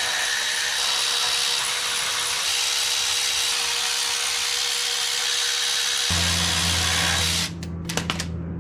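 A power tool running steadily for about seven seconds, then cutting off. A low steady hum comes in shortly before it stops.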